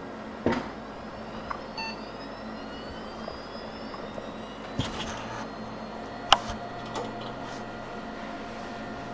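A few sharp clicks and knocks, the loudest about six seconds in, over a steady low electrical hum, with faint rising whistle-like tones between about two and four seconds in.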